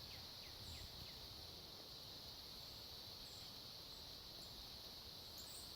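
Faint woodland ambience: a steady high-pitched insect drone, with a short series of falling bird chirps in the first second and a few brief high chirps later on.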